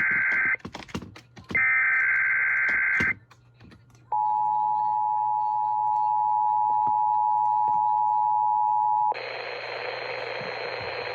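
Emergency Alert System test over the radio: the tail of one SAME header data burst, then after a short gap another burst of about a second and a half. About a second later comes the EAS two-tone attention signal (853 and 960 Hz), held steady for about five seconds, followed by about two seconds of quieter hiss-like noise.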